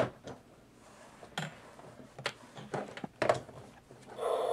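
Scattered light clicks and knocks of plastic Little People figures handled on the play set. Near the end the Fisher-Price Zoo Talkers play set starts an electronic water-spout sound effect through its small speaker, the whale's blowhole spraying, triggered by pressing the whale figure onto its spot.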